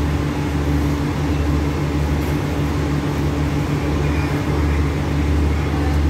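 Steady low engine hum of a stationary diesel passenger train idling at the platform.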